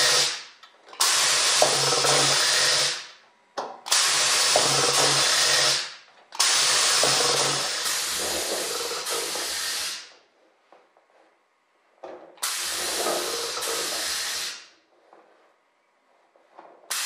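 Homemade pneumatic C-frame dimpler with a 4-inch air cylinder, hissing in bursts of compressed air as it is cycled by its foot pedal to dimple rivet holes in aluminum wing skin. There are about five hisses, each two to three seconds long, with short pauses between.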